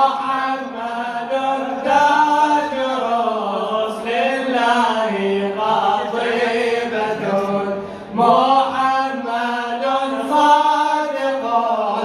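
Men's voices chanting an Arabic mawlid jalwa praise hymn for the Prophet in long, drawn-out sung phrases, with short breaks between lines.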